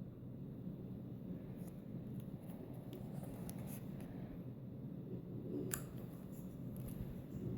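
Pages and flaps of a children's lift-the-flap book being handled and turned: paper rubbing and rustling, with one sharp tap near the end.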